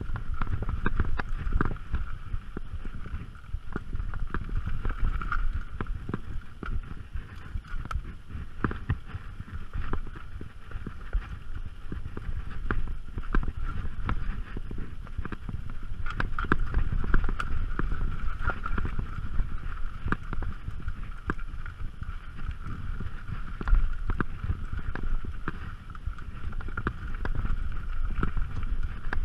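Mountain bike riding down rocky dirt singletrack: a constant rumble of tyres and wind on the microphone, with frequent sharp rattles and knocks as the bike jolts over rocks, and a steady high buzz running underneath.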